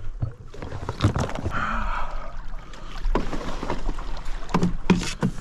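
Kayak being paddled on calm water: paddle splashes and irregular knocks of the paddle and gear against the hull, with a cluster of louder knocks near the end, over a low wind rumble on the microphone.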